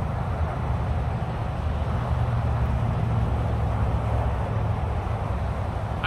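Steady low rumble of highway traffic, a continuous drone without distinct passing vehicles.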